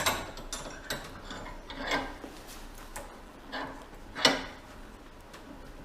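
Brake parts and hand tools being handled on a workbench: a few short knocks and scrapes of metal, the loudest about four seconds in.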